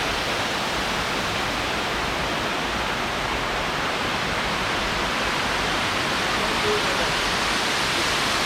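Waterfall pouring into a pond: a steady, even rush of falling water.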